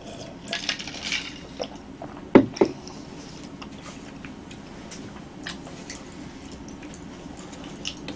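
A drink taken from a glass of americano. The glass is then set down on the wooden table with two sharp knocks about two and a half seconds in, followed by faint clicks and rustles as a roasted sweet potato is picked up and handled.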